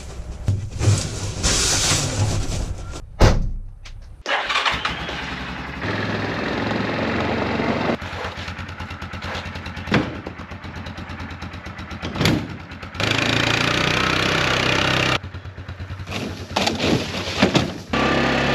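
Quad bike engine starting and running in a string of short cuts, with sharp knocks and clunks from loading pipe and hitching a trailer.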